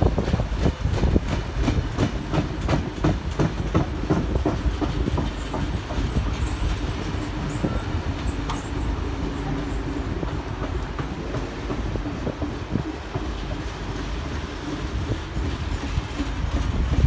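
Heritage passenger carriages rolling past close by: a steady rumble with the wheels clicking over the rail joints, and faint high-pitched squeaks from the wheels a few seconds in.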